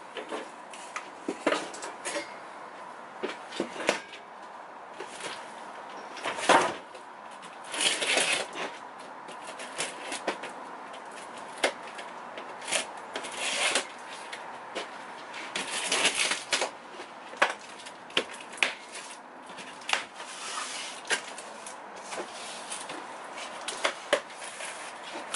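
Irregular knocks and clatter of metal parts being handled on a steel-slat workbench, mixed with a large cardboard-boxed steel tabletop scraping and rustling as it is slid and set down.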